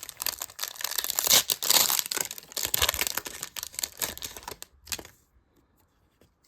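Prizm Draft Picks trading card pack wrapper being ripped open, crinkling and tearing for about five seconds, loudest a second or two in, then stopping.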